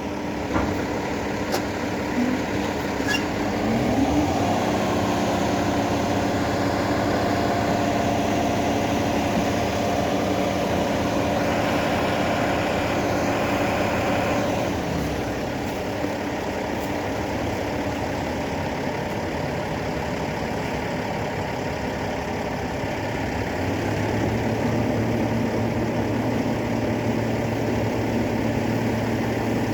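Heavy diesel engines of earthmoving machines, a Caterpillar D8T bulldozer and an articulated dump truck, run steadily. The engine note shifts about 4 seconds in, again near the middle, and again toward the end.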